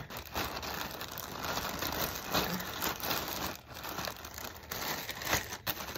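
Clear plastic packaging bags crinkling and rustling as hands handle and shift them, uneven with a few sharper crackles.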